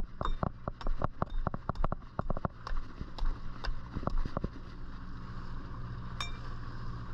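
Rapid, irregular knocks and slaps of a hooked fish thrashing against the boat's hull at the waterline, over the steady hum of the boat's engine. The knocking stops about four and a half seconds in, leaving the engine running, with a single metallic clink near the end.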